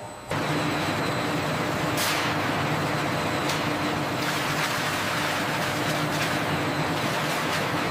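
Water gushing and splashing into a stainless steel wash tank as a steady, loud rush that starts suddenly, with a low steady machine hum underneath.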